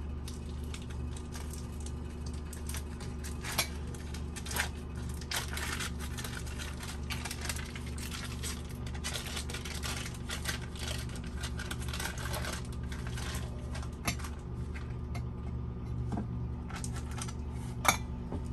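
Foil cream cheese wrappers crinkling and rustling as they are squeezed out, with scattered clicks and clinks against a stainless steel mixing bowl. A running microwave oven hums steadily underneath.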